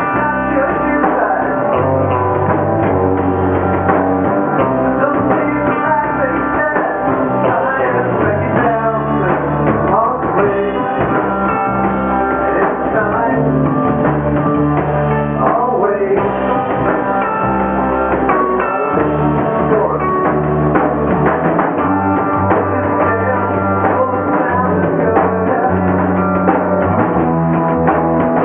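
Rock band playing live: electric guitar, electric bass and a Pearl drum kit, with the bass notes shifting every couple of seconds under a dense wall of guitar and cymbals.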